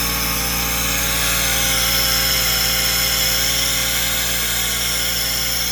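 Power tool running steadily while cutting through the crankshaft of a seized 3.6 L V6 engine to free it from the block.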